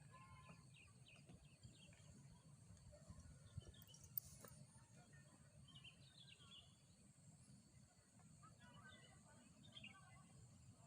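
Faint outdoor ambience: small birds chirping now and then over a steady high hiss and a low rumble, with one sharp click about four seconds in.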